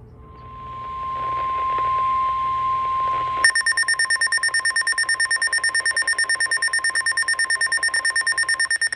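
NOAA Weather Radio warning alarm tone: a steady electronic tone near 1 kHz that swells in. About three and a half seconds in, a rapid electronic alarm beeping joins it, about nine beeps a second, and stops just before the end. The tone signals a new warning about to be broadcast.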